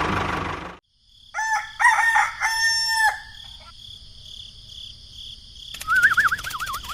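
A motor running cuts off abruptly about a second in. A rooster crows, a drawn-out call lasting about two seconds. Near the end a wavering, warbling whistle starts up with fast clicking behind it.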